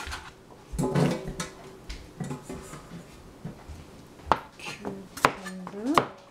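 Knocks and clatter of hands and a cleaver on a plastic cutting board as chopped tomato is scooped away and a cucumber is set down. A few sharp knocks come in the second half, the last one the cleaver cutting into the cucumber on the board, just after a short rising squeak.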